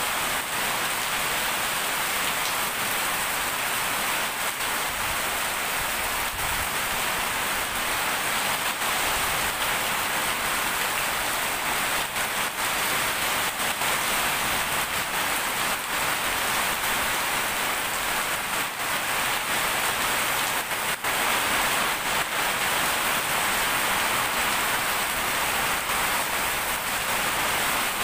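Heavy downpour: a steady, even hiss of rain falling on a paved road and trees, with a few brief sharper ticks.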